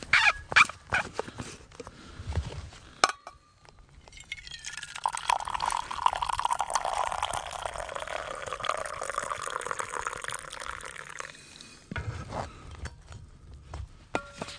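Hot drink poured from a steel vacuum bottle into an insulated steel tumbler: a steady pour that starts about four seconds in and lasts about seven seconds. Before and after it, clicks and knocks of the bottle and cup being handled.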